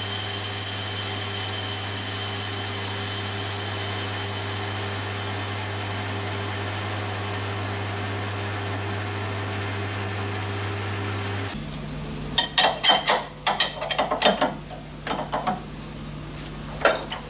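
Metal lathe running steadily with a low hum while a turning tool faces the end of a cast-iron piston held in a collet. The lathe stops suddenly about eleven seconds in, followed by a series of light metallic clicks and knocks as the part is handled.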